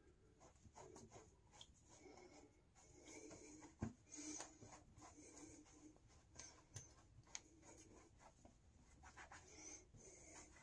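Faint rubbing of a cloth towel dabbing dry a freshly shaved neck and beard, with a few soft scratchy rustles and ticks.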